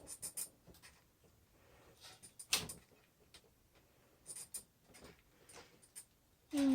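Scattered light clicks and taps from small longboard drive-wheel parts being handled, the sharpest about two and a half seconds in. Near the end, a short hummed 'mm' from a person.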